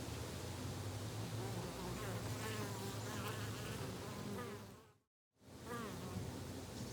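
A flying insect buzzing close by, its pitch wavering up and down as it moves, over a steady low hum of garden background. All sound cuts out abruptly for about half a second near five seconds in, then resumes with the buzzing.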